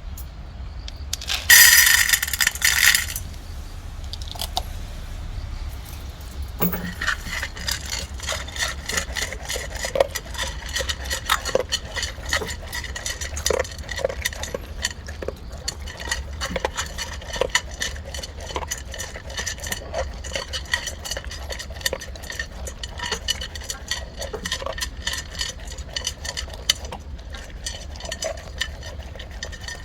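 Labrador retriever eating dry kibble from a bowl: a steady run of quick crunches and kibble clinking and scraping against the bowl. A loud clatter of about a second and a half comes near the start.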